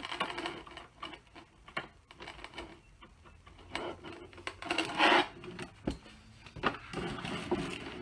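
Handling noise from plugging a VGA connector into the back of a computer monitor: scattered clicks and knocks, cables rubbing, with a louder scrape about five seconds in and more rubbing as the monitor is moved near the end.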